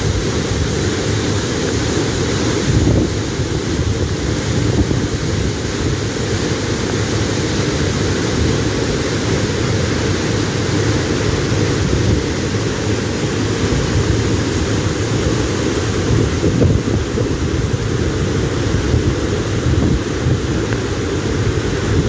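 Waterfall and its rocky stream: a steady, dense rush of falling and flowing water, heaviest in the low end.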